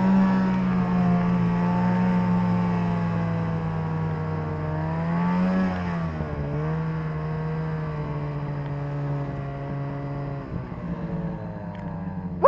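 Snowmobile engine running under throttle through deep powder, its pitch swelling a little past halfway, dipping, and then easing off toward the end. A sudden loud sweep in pitch cuts in at the very end.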